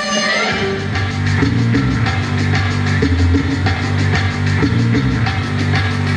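Loud rock-style dance music: a held chord gives way about half a second in to a driving drum-kit beat and heavy bass that keep a steady rhythm.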